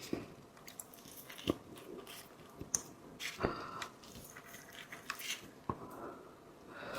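Chewing and biting into seafood, with scattered sharp clicks and crunches.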